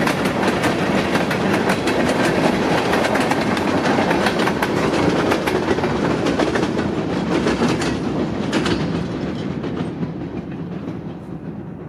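Tail end of a freight train of tank cars and covered hoppers rolling past, steel wheels clicking and clattering over the rails. The sound fades over the last few seconds as the train moves away.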